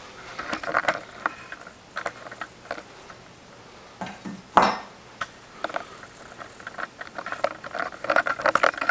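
Handling noise: scattered clicks, taps and metal clinks of drum-rack clamp hardware and a camera being moved, with one louder knock about four and a half seconds in and a quick run of small taps near the end.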